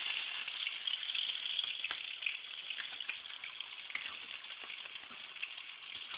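Oil sizzling and crackling in a frying pan taken off the burner after frying fish: a steady hiss with small pops, slowly dying down.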